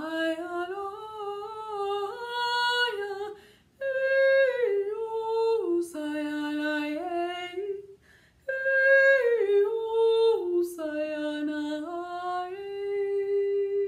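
A trained female singer's voice singing unaccompanied, wordless held notes that step up and down with a slight vibrato, in three long phrases with short breaths between them.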